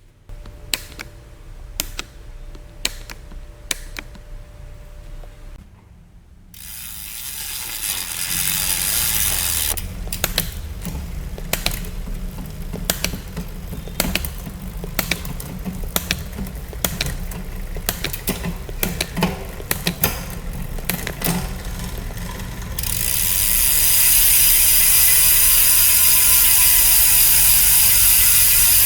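Bicycle rear freehub ratcheting, its pawls clicking as the wheel turns. First come separate slow clicks, then faster clicking over a rushing noise, and about 23 seconds in it becomes a loud continuous buzz as the wheel spins fast.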